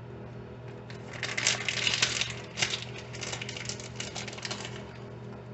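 Plastic bag of shredded taco-blend cheese crinkling as it is handled, a dense run of crackles lasting about four seconds.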